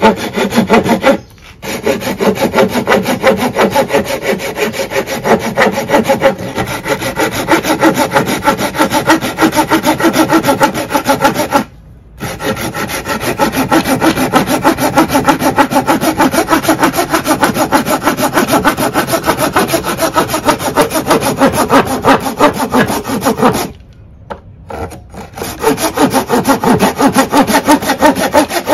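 Folding hand saw with a 180 mm steel blade cutting across an old, dry wooden board: fast, steady back-and-forth rasping strokes. The sawing stops briefly three times, about a second in, around the middle and a few seconds before the end.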